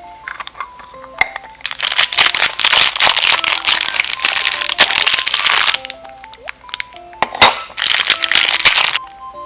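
Light background music of short plinking notes, with two long bursts of dense crackling clicks: the first lasts about four seconds, the second starts near the end and lasts about two.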